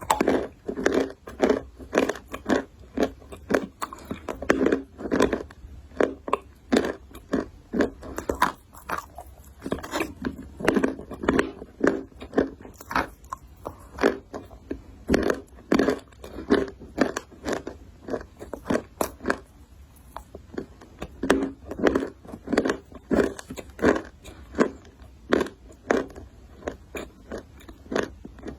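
A person biting and chewing something hard and crunchy, close to the microphone: a steady run of crisp crunches, about two to three a second, with short pauses between mouthfuls.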